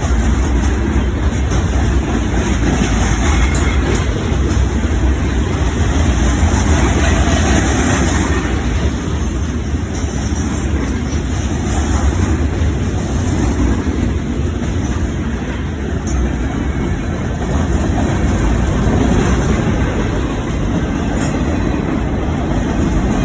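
A train running: a steady, loud rumble that holds without a break.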